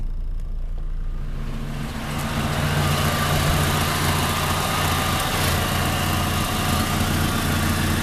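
Volkswagen Jetta's 2.0-litre four-cylinder engine idling steadily, fully warm after more than an hour of running. It is heard muffled from inside the cabin at first, then louder and clearer at the open engine bay from about two seconds in.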